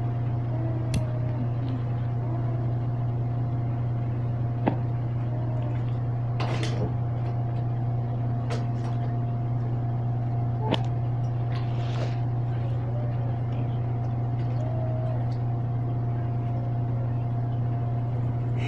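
A steady low hum throughout, with a few sharp clicks and a couple of short rasps of scissors snipping through denim.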